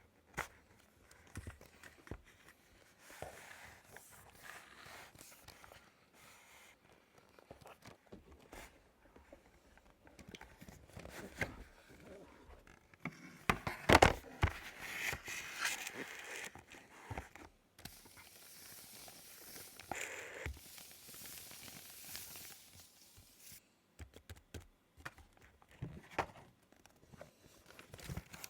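Hands unpacking a keyboard's packaging: scattered light clicks and knocks with rustling, crinkling and tearing of paper and packing material, the loudest handling noise near the middle followed by a longer rustle.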